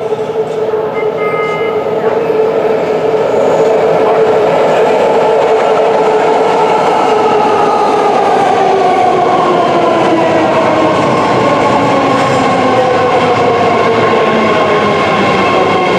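A BART Bombardier Fleet of the Future electric train pulling into the platform. Its running noise swells over the first few seconds, then holds steady as the cars slide past, and its whine falls in pitch through the second half as the train slows. A brief high tone sounds about a second and a half in.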